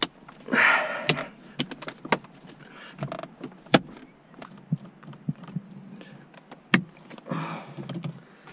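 Acura TL centre console plastic trim panels being pressed into place: a run of sharp clicks and snaps as the retaining clips seat, with short stretches of plastic scraping and rubbing.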